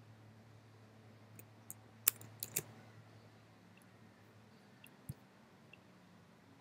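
Faint clicks from computer mouse and keyboard use: a quick run of about five clicks around two seconds in, and two more about five seconds in, over a low steady hum.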